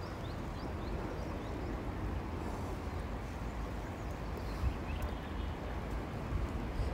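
Steady low rumbling background noise, with no speech or music.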